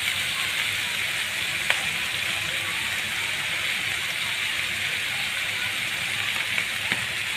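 Chopped banana stem frying in hot oil in a steel kadai, a steady sizzle throughout. Two faint light ticks, about two seconds in and near the end.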